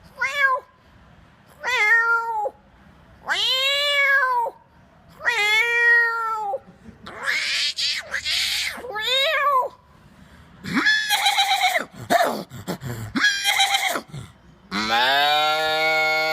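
A man imitating cat meows with his voice: a string of about eight drawn-out meows and yowls, each rising and falling in pitch, with short pauses between them. The last call, near the end, is longer and steadier.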